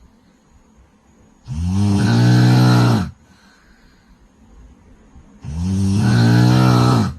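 A woman snoring extremely loudly: two long, deep, rattling snores, each about a second and a half, with a quiet breath between them.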